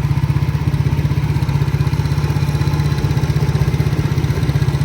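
Motorcycle engine idling steadily with a rapid, even pulse.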